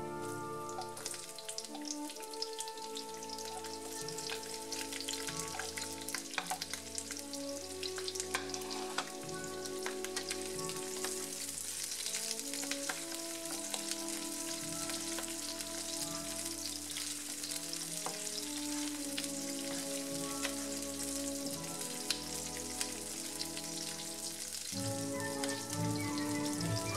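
Garlic, red onion and chilies sizzling in hot oil in a frying pan, with a steady hiss and fine crackling throughout. Soft instrumental background music plays underneath.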